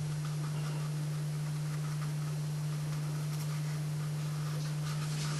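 A steady, low electrical hum, one unchanging tone, over faint hiss.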